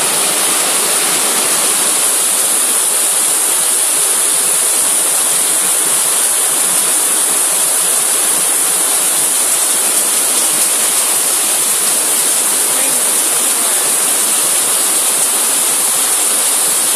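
Heavy downpour: a loud, steady hiss of rain pouring down "like a waterfall".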